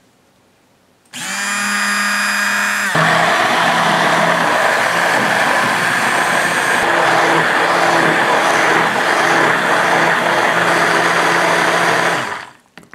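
A bamix immersion blender switches on about a second in and runs steadily, blending a tofu, milk, oil and maple-syrup batter in a glass bowl. Its motor hum turns louder and rougher about three seconds in, and it switches off just before the end.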